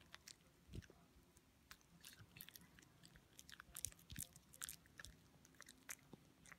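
A poodle chewing a snack: faint, irregular crunches and clicks of its teeth, coming thickest in the middle.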